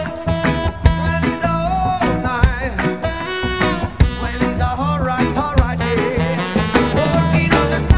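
Live reggae band playing with saxophone, electric guitars, bass, drums and keyboards over a steady beat.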